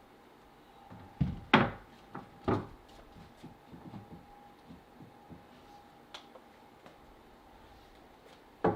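A few sharp wooden knocks and thumps, clustered between about one and two and a half seconds in, with one more near the end, amid light clicks and a faint steady hum.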